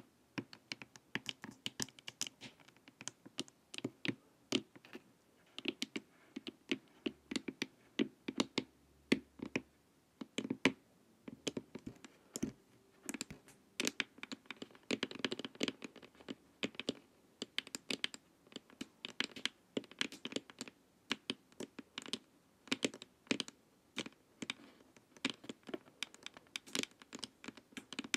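Long fingernails tapping and scratching on a hard, glossy plastic face mask: quick, irregular clicks in flurries, with scratching between the taps.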